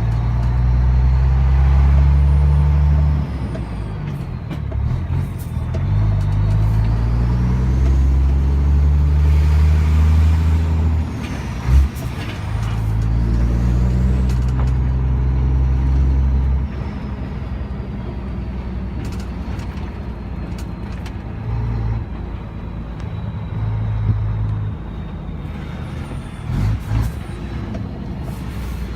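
Renault Magnum 440's 12-litre Mack E7 diesel under load while the truck shifts through its gears, the engine note pulling strongly and dropping off at each change, about three times, with the turbo whistling faintly as it spools up and down. A few short, sharp air puffs cut in, once after the second shift and twice near the end.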